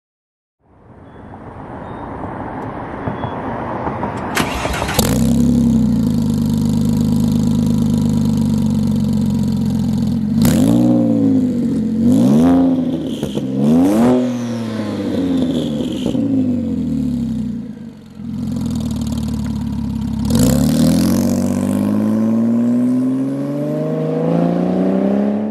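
2007 Porsche 911 Turbo (997.1) twin-turbo flat-six cranking and catching about five seconds in, then idling. Several quick revs follow in the middle. Near the end it accelerates away, its pitch rising steadily.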